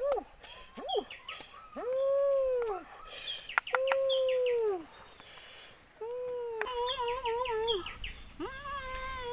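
A cat meowing over and over, about six drawn-out meows, the later ones wavering, with small birds chirping.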